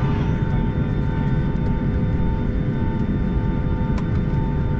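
Boeing 757-300 jet engines at low taxi power, heard inside the cabin: a steady rumble with a constant whine above it.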